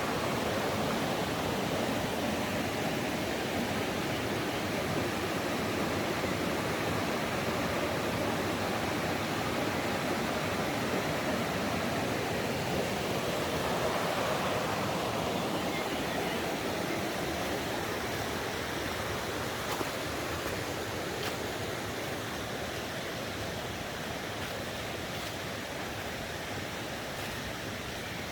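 Mountain stream rushing steadily, growing a little louder about halfway through and then easing slightly.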